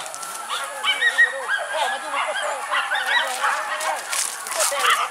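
A pack of wild boar hunting dogs yelping and baying excitedly, with many short, high, overlapping calls in a continuous chorus, the typical sound of dogs on a boar's scent.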